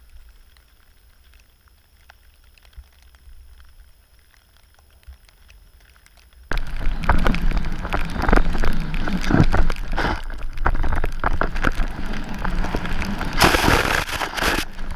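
A quiet stretch riding the chairlift, then an abrupt jump to the loud rush of skis through deep powder snow: constant crackling hiss of snow with wind rumble on the GoPro microphone. A brighter, hissing burst of snow spray comes near the end.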